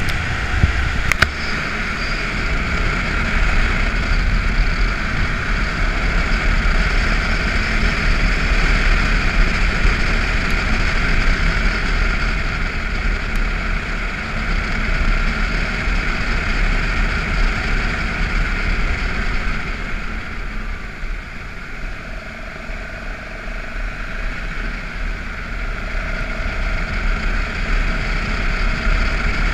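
BMW F650GS motorcycle riding along a gravel road: steady engine and wind noise with a low rumble, easing off for a few seconds about two-thirds of the way through before picking up again. A single click about a second in.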